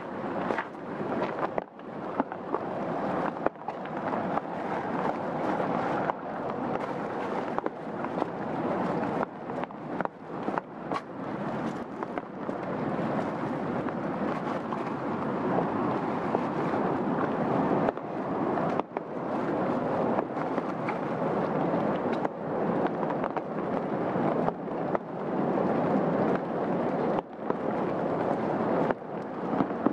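Steady rain, a dense crackling patter of drops.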